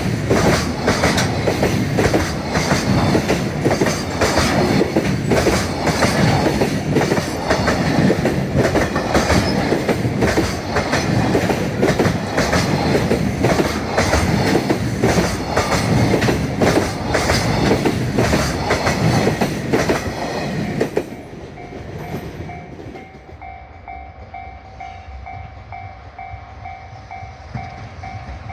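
A freight train passing close by: a loud, steady rush with a fast clatter of wheels over the rail joints. About 21 seconds in, the train clears and the noise falls away, leaving a level-crossing warning bell dinging in a steady rhythm.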